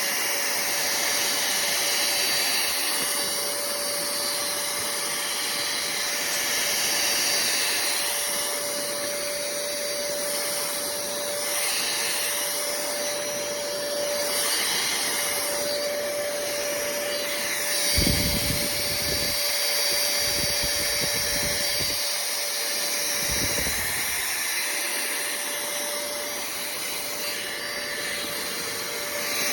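pemacom cordless handheld vacuum running steadily with a constant motor whine and airflow hiss as its carpet nozzle picks up paper bits from a sofa. A few low thumps come about two-thirds of the way through.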